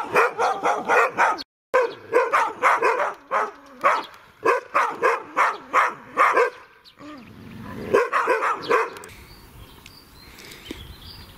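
A dog barking in a fast, unbroken series of short barks, about three a second, at a stranger. Near the end the barking stops and faint bird chirps remain.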